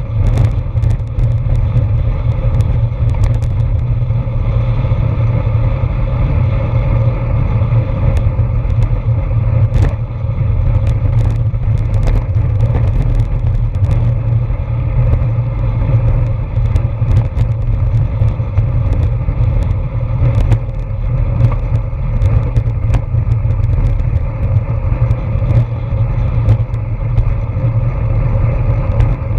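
Wind rushing over the microphone of a camera mounted on a road bike at speed: a loud, steady low rumble, with scattered clicks and rattles.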